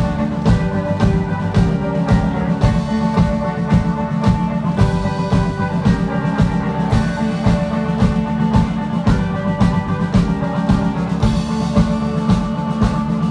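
Rock band playing live through a PA, instrumental: electric guitars and bass over a steady, driving drum-kit beat.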